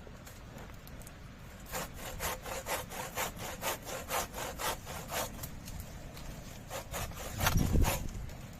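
Hand saw cutting wood in quick back-and-forth strokes, about three to four a second. It pauses, then a few more strokes come near the end together with a brief low rumble.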